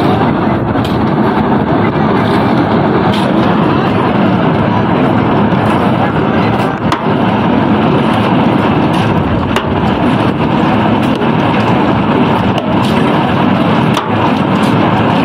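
Concrete pipe-spinning machine running: its steel mould turns on its roller wheels with a loud, steady rumble and scattered clicks and rattles.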